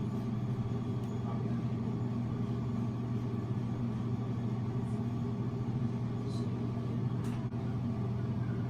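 A steady low hum, with a few faint soft ticks in the second half.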